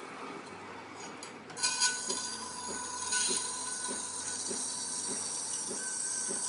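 Espresso machine steam wand hissing. The hiss opens up sharply about a second and a half in, with a couple of clinks, then runs steadily with a faint high whistle over it.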